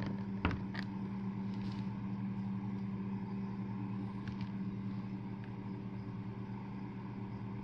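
Steady low mechanical hum, like a motor running, with a few faint light clicks of glass bottles being handled.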